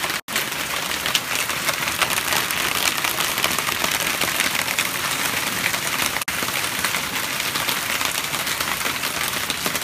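Heavy hail falling: a dense, steady clatter of countless hailstones striking paving stones and garden plants.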